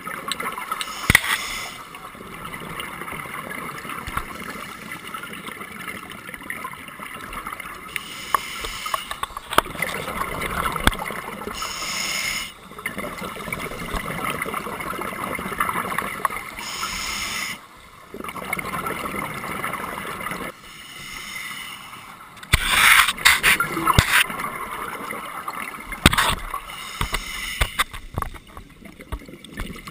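Underwater sound from a scuba diver's camera: steady muffled hiss of the regulator, with a burst of gurgling exhaled bubbles every few seconds, and a few sharp knocks.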